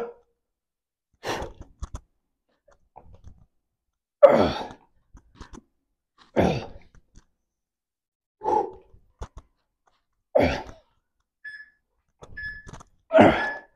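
A man's hard, breathy exhalations from exertion, about one every two seconds, as he works through plank T raises. Near the end, faint short beeps come about a second apart, typical of a workout interval timer counting down.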